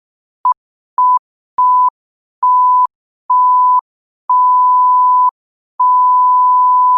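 Electronic beeps at one steady pitch, seven in a row, each longer than the last, from a short blip to a long tone of about a second and a half.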